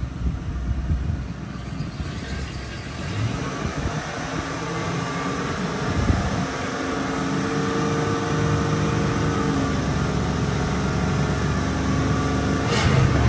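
1997 Ford F-250 pickup's engine running, its speed and level rising over a few seconds from about three seconds in and then held steady at a raised speed. A single sharp knock near the end.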